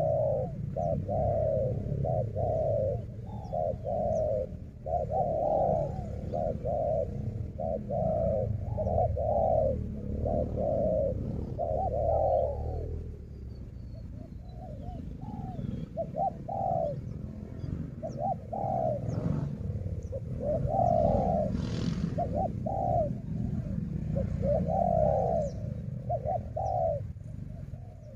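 Spotted doves cooing in repeated short phrases of rolling coos, over a steady low rumble.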